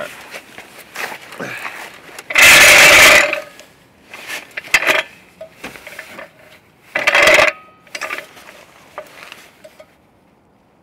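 Metal floor jack scraping and clanking on asphalt as it is pushed and positioned under a car's front end. There are two loud scrapes, one about two and a half seconds in and a shorter one about seven seconds in, with smaller knocks between them.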